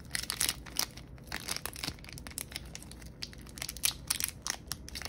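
Clear plastic wrap crinkling and tearing as it is peeled off a stack of trading cards, a quick irregular run of small crackles.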